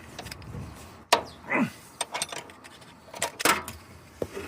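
Steel ring spanners clicking and clinking against each other and the hinge bolt as the bolt is tightened by hand, a few sharp metallic clicks. Two short sounds falling in pitch come between the clicks.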